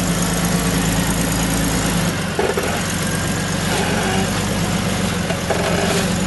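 Jeep Wrangler YJ engine running steadily at low revs as the Jeep crawls out of a muddy rut under load, its low hum shifting about two seconds in.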